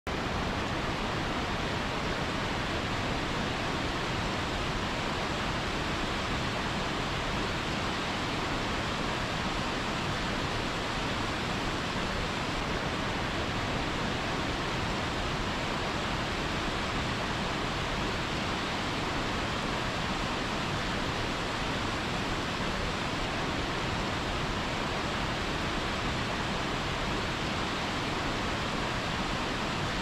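Waterfall pouring onto boulders into a pool: a steady, even rush of falling water that doesn't change.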